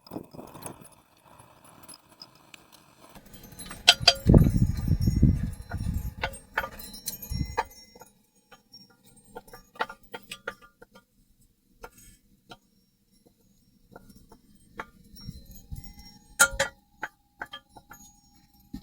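Metal kitchen utensils clinking and tapping against a pan and bowl, with a louder stretch of scraping and clatter about four seconds in that lasts a few seconds.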